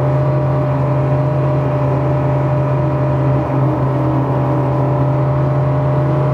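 Outboard engine of a Superrib Open 27 rigid inflatable boat running hard at speed, a steady engine note over the rush of hull and water noise.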